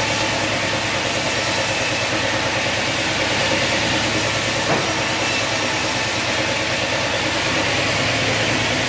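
Band sawmill running with a steady, unbroken mechanical drone as it saws a log.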